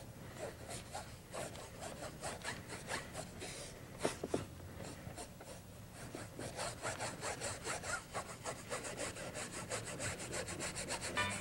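Paintbrush scrubbing thinned oil paint onto canvas in quick back-and-forth strokes, about three a second at first and faster, about five a second, in the second half. A single knock comes about four seconds in.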